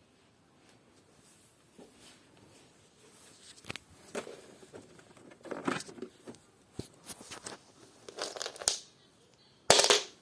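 Chocolate bar and its wrapper being handled: irregular crinkling rustles and sharp cracks, the loudest crack near the end.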